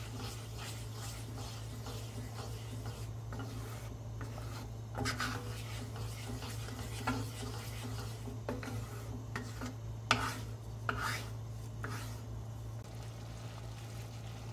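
Wooden spatula stirring and scraping a thick tomato sauce around a nonstick pan, with irregular scrapes and light knocks against the pan, thinning out near the end; the flour in the sauce is being cooked through. A steady low hum runs underneath.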